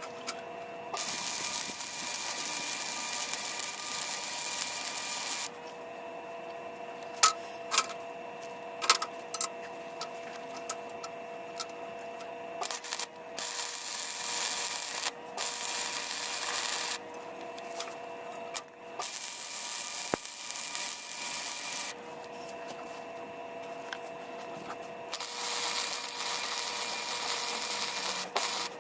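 Welder laying weld beads in bursts of a few seconds, each an even hiss, with pauses between in which a steady machine hum and a few sharp taps are heard.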